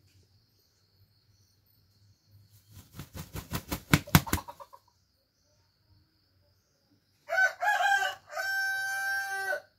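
Rooster beating its wings in a quick run of strokes that come faster and louder, then, a few seconds later, crowing once: a broken opening followed by a long held final note.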